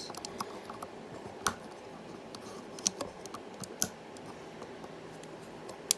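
LEGO plastic pieces clicking and tapping as they are handled and pressed together, a scattering of separate sharp clicks with the loudest about a second and a half in, around three and four seconds in, and just before the end.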